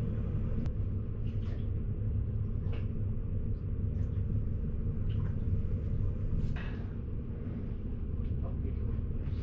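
Boat motor running steadily under way, a constant low rumble.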